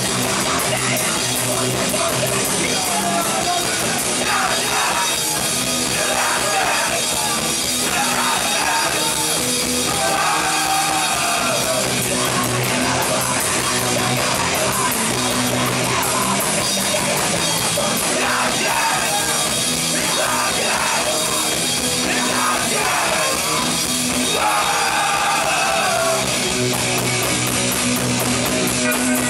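Punk band playing live: distorted electric guitars, bass and drum kit, with vocal phrases coming in and out over the music.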